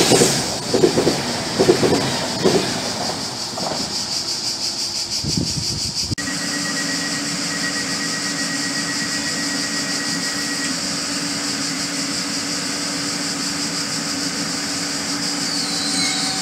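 Red Italo high-speed electric train running through the station, its bogies thumping over the rails in a regular beat a little under once a second, fading away. After a sudden cut comes a Trenitalia ETR 103 Pop electric multiple unit standing at the platform, giving a steady low hum, with a thin high whistle for its first few seconds.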